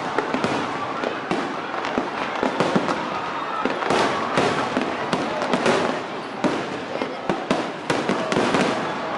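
Fireworks bursting in quick, irregular succession, many sharp bangs over a continuous crackle, with faint crowd voices underneath.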